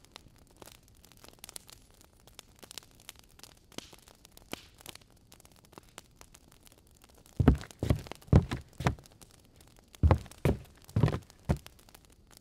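Two runs of dull, heavy thumps, about two a second and four or five in each run, the first a little past halfway and the second near the end, over faint scattered ticks.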